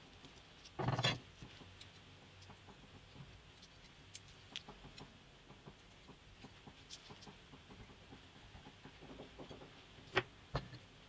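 A metal rod spreading a dark paste over a square of waterproof sandpaper: faint scraping and small scattered clicks, with one louder scuff about a second in and two sharp clicks near the end.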